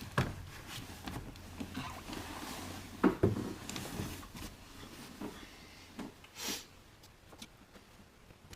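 Scattered clicks and light knocks of hands handling wiring and a plastic Deutsch connector, a sharper pair near the start and again about three seconds in, with softer taps later.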